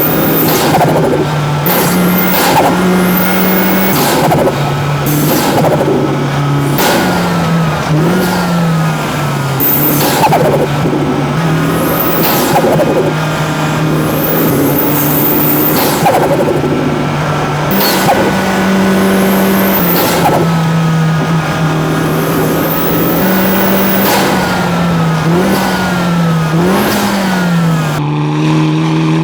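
Hyundai Elantra N's turbocharged four-cylinder engine and exhaust driven hard on track. The engine note holds at high revs, then jumps and swoops up and down with gear changes and throttle blips. Short sharp hissy bursts, turbo flutter, come when the throttle is lifted, every couple of seconds.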